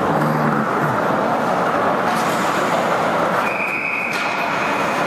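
Steady, loud noise of an indoor ice rink during a hockey game, with no clear voices. About three and a half seconds in, a steady high tone sounds for about a second.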